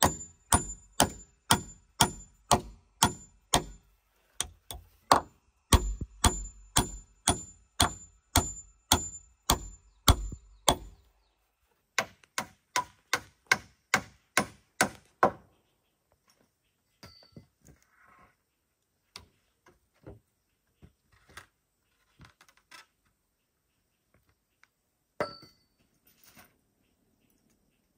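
Claw hammer driving nails into timber: steady blows about two to three a second, each with a short metallic ring, in three runs with brief pauses between. About halfway through the hammering stops, and only a few scattered, quieter knocks and taps follow.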